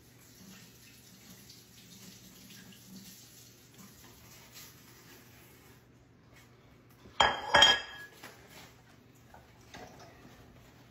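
Faint running water from a kitchen tap while butter is rinsed, then a ceramic plate clattering down on the countertop about seven seconds in: two quick loud strikes that ring briefly. A couple of small knocks follow near the end.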